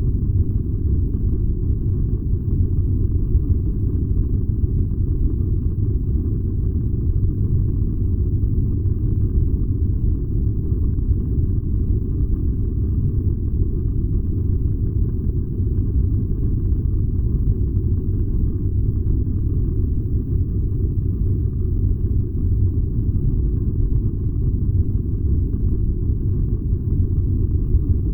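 Furnace burning steadily, a constant low rumble with no changes.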